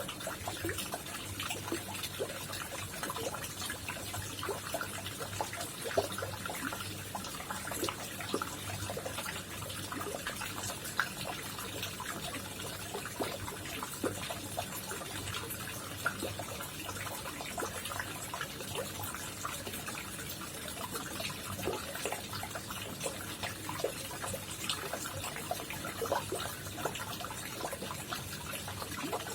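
Water trickling and splashing into a koi pond: a steady, unbroken patter of many small droplets, with a faint low hum underneath.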